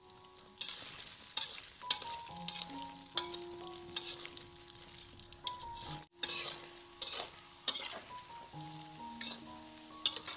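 Meatballs sizzling in hot oil in an aluminium wok, with a metal spatula scraping and clicking against the pan as they are stirred. Soft background music plays underneath. The sound drops out briefly about six seconds in.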